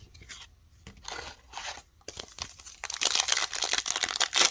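Trading-card pack wrapper being handled and torn open: faint rustling at first, then dense crinkling from about three seconds in.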